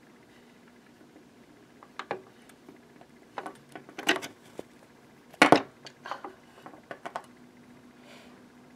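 A scattered run of sharp clacks and knocks of hard plastic figures striking, the loudest about five and a half seconds in.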